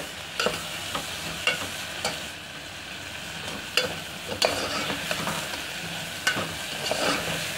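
Sliced onions sizzling in hot oil in a pressure cooker, being softened only until pink. A spatula stirs them, scraping and knocking against the pot in irregular strokes every half second to a second.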